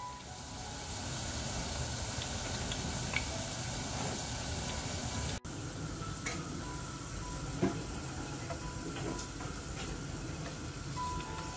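Thin raw sweet-potato slices sizzling steadily as they deep-fry in hot oil, with a few short clicks.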